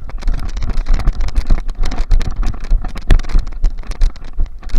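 Loud, irregular knocks, clicks and rustles over a heavy low rumble: movement and handling noise on the microphone of a camera worn while moving.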